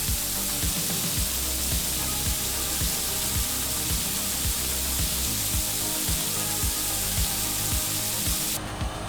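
Loud, steady hiss of high-pressure water jetting from a leaking pipe, cutting off suddenly near the end, over background music with a steady beat.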